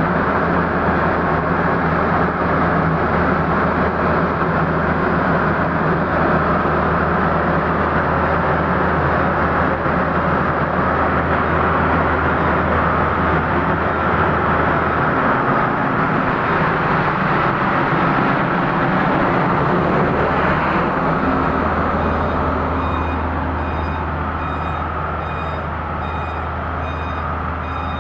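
Diesel engine of a Pindad excavator running steadily at idle. About three-quarters of the way in, a repeating travel/reversing alarm starts beeping.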